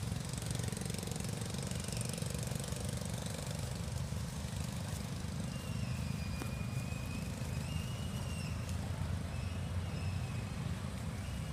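Steady low rumble of wind buffeting the microphone. A faint, high, wavering call comes in drawn-out stretches from about halfway in.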